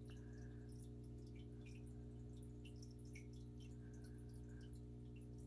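Near silence: a steady low electrical hum, with faint scattered small ticks.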